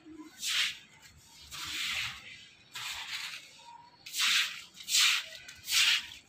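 Kite string rasping through the flyer's hands in a series of short swishes, about six of them roughly a second apart, as the line is tugged in quick pulls to work the kite.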